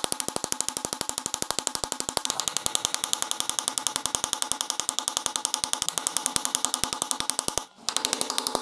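Small hammer rapidly striking a steel rivet to peen its head over on a metal handle strap, about a dozen sharp, ringing metal taps a second. The taps break off briefly near the end, then resume.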